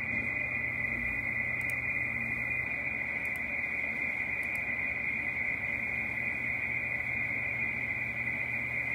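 Icom IC-7300 transceiver's speaker playing the 40-metre FT8 frequency: steady band-noise hiss with a constant band of overlapping digital-mode data tones high in the audio.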